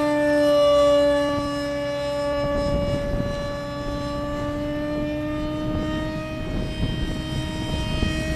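Scratchbuilt RC F-18 model jet's motor whining as it flies overhead: a steady high whine whose pitch dips slightly after about a second and then climbs slowly. Wind rumbles on the microphone from about two and a half seconds in.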